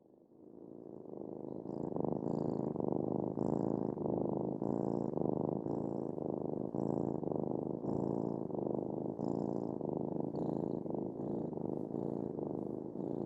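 Domestic cat purring steadily and close up. The purr fades in over the first couple of seconds, then pulses evenly about once every second and a bit as the cat breathes in and out.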